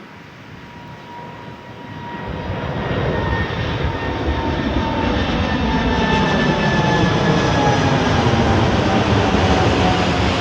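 Airplane flying low overhead: a loud engine rumble swells over the first few seconds and then holds, with an engine whine that slowly falls in pitch as the aircraft passes.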